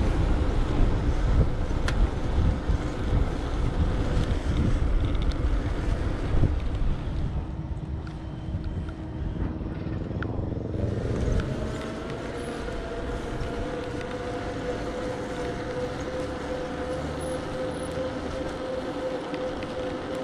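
Road traffic going by, with a heavy low rumble for the first third. In the second half a steady hum holds.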